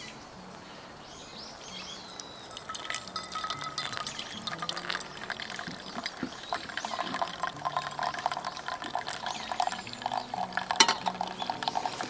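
Hot water poured in a thin stream from a small camping kettle onto ground coffee in a paper filter, a pour-over brew. The trickling starts about two and a half seconds in and carries on.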